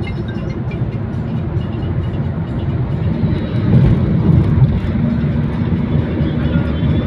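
Steady road and engine rumble inside a moving car on a highway, swelling a little around the middle as a truck passes close alongside.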